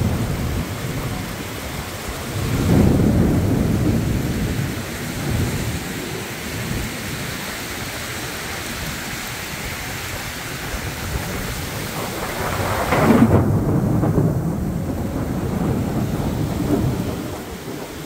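Heavy rain pouring steadily, with thunder rumbling twice: once about three seconds in and again past the middle, each roll lasting a few seconds.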